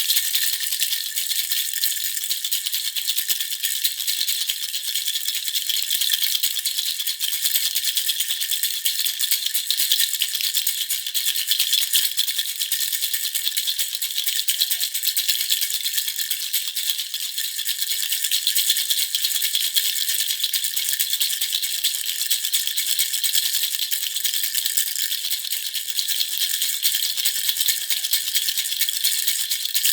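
A baby rattle (jhunjhuna) being shaken without a break, a dense, high-pitched rattle with no pauses.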